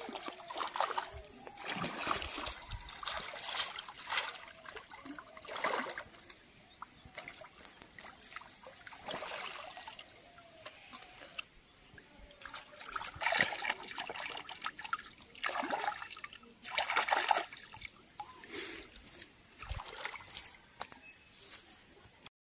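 Hands splashing and swishing in shallow pond water while washing cut fish: irregular splashes and trickles, some louder than others, with short quiet gaps between.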